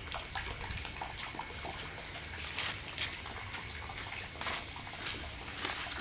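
Water drops falling on a large yam leaf in scattered light ticks and taps, over a steady thin high-pitched tone and a low rumble.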